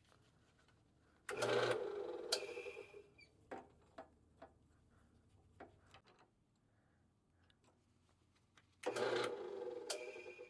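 Drill press motor switched on twice for short spins of about a second and a half each, turning the reseated winch shaft in the chuck to check whether it runs true. A few separate clicks of metal handling come between the two runs.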